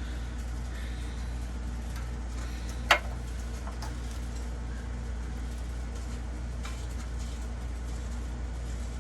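A single sharp click about three seconds in, with a few faint ticks, as a new oxygen sensor is threaded into the exhaust by hand, over a steady low hum.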